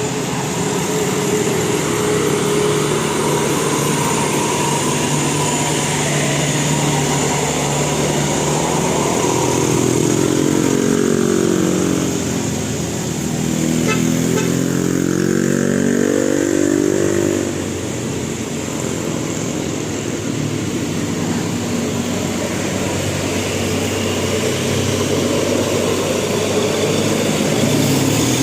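Road traffic, most likely buses, passing with engines running; about 9 seconds in, one engine's pitch falls and then climbs again, easing off at about 17 seconds.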